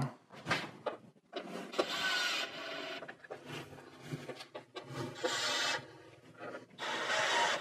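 DeWalt cordless drill running in several short runs, driving the Torx bolts loosely into the top mounts of a car's front bumper so it holds in place without being tightened.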